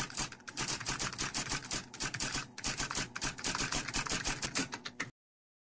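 Typewriter keystrokes sound effect: a rapid run of sharp key clacks, many a second with brief pauses, stopping abruptly about five seconds in.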